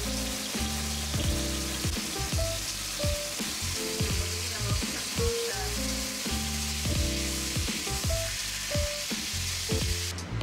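Meat searing in a hot frying pan, with a steady sizzle that cuts off near the end, under background music with a steady beat.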